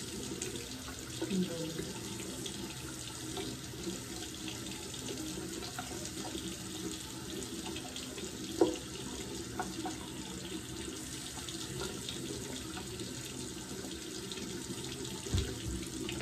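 Bathroom sink tap running steadily, water splashing into the basin, with a single light knock about halfway through.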